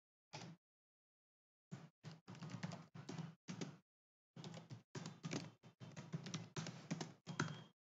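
Typing on a computer keyboard: a few keystrokes, then quick runs of keystrokes from about two seconds in, with a short pause in the middle.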